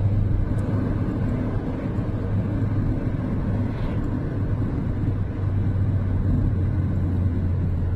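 A car driving along, heard from inside the cabin: a steady low rumble of engine and road noise.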